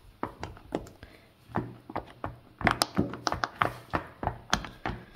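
Silicone pop-it fidget toy's bubbles popping as small toy figures are pressed and bounced onto them: a quick irregular series of soft pops and taps, about three a second.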